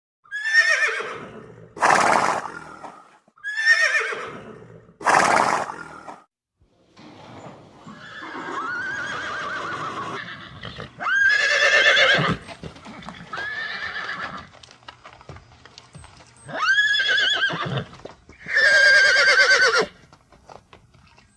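Horse whinnying: a series of separate neighs, each a wavering call that falls in pitch, with short gaps between them.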